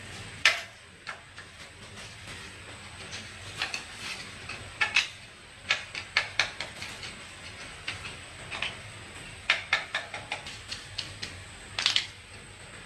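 Hand tools and metal parts clinking and tapping at an irregular pace during engine repair work, the strongest knock about half a second in and another near the end.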